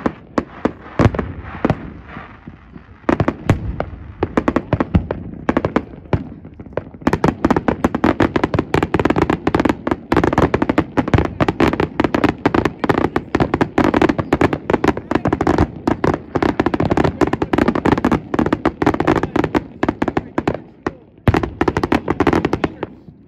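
Fireworks finale barrage: aerial shells bursting in quick, overlapping bangs and crackles, thickening into a near-continuous barrage about a third of the way in, with a brief lull near the end before more bursts.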